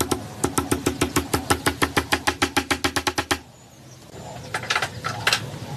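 A mechanism clicking fast and evenly, about seven clicks a second over a low hum, stopping about three and a half seconds in; a few more sharp clicks come near the end.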